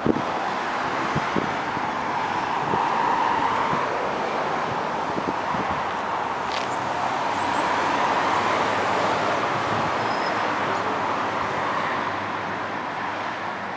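Road traffic noise: a steady rushing of passing vehicles that swells slightly about three seconds in and again about eight seconds in.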